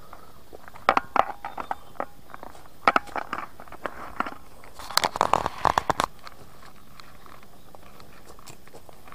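Footsteps crunching and snapping on twigs and leaf litter on a forest trail: irregular clusters of sharp crackles, densest about five to six seconds in.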